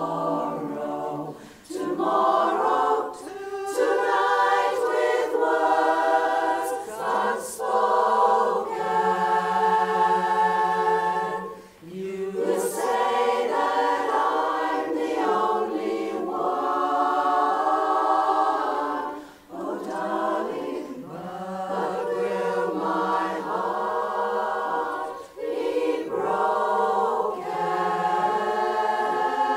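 A women's barbershop chorus singing a cappella in close harmony, in phrases separated by brief breaks.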